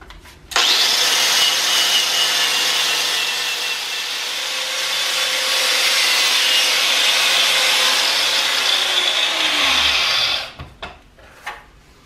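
Angle grinder with a wire cup brush scouring flaking rust and paint off a rusty steel shell. It starts abruptly about half a second in, runs steadily with the motor hum under the scraping, then is switched off near the end and winds down with a falling whine.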